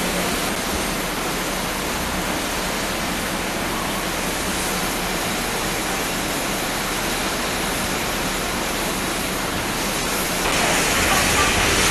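Steady hiss of steam escaping from a standing BR Standard Class 4MT 2-6-0 steam locomotive, which grows louder near the end.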